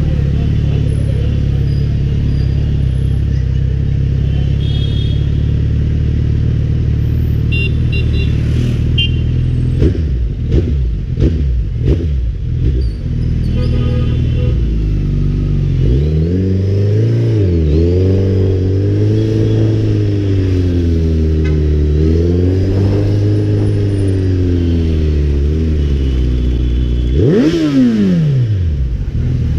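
Suzuki Hayabusa's inline-four engine running at low revs in slow stop-and-go riding, its pitch wavering up and down with small throttle changes. Near the end it is revved sharply once, rising and falling back quickly.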